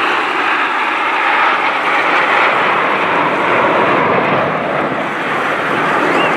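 Formation of Aermacchi MB-339 PAN jet trainers flying overhead, their Viper turbojet engines making a loud, steady jet noise.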